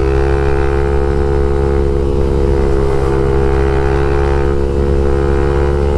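Honda Twister 250 motorcycle's single-cylinder engine through an aftermarket LeoVince exhaust, running at steady revs while riding.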